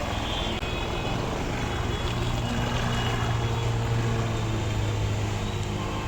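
Motor vehicle engine running with a steady low hum, over general street and traffic noise.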